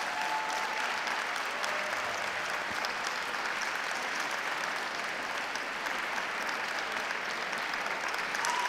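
Audience clapping steadily.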